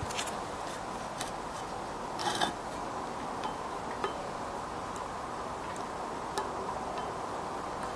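Worn-out rear wheel ball bearing turned slowly by hand, giving scattered sharp clicks and one short louder burst about two seconds in: the bearing is dead.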